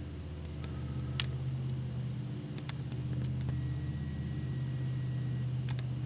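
Steady low motor hum with an even pitch, with a few faint short sharp ticks over it.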